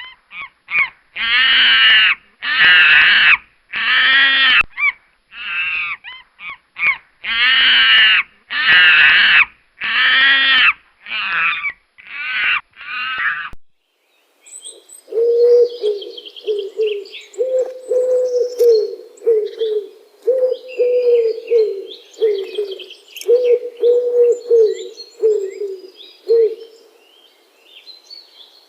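Animal calls: first a string of about fifteen loud, harsh calls, each about half a second long; then, after a short break, twittering bird chirps over a low call that repeats steadily.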